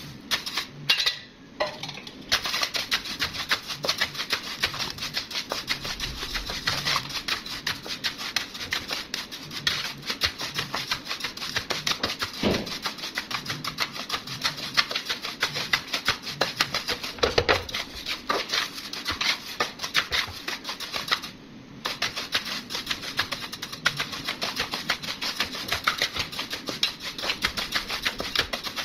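Raw rice grains poured into a frying pan, then stirred and scraped around the pan with a metal spoon: a dense, rapid patter of grains clicking and rattling against the pan and spoon, with a couple of heavier knocks and a brief pause a little past the middle.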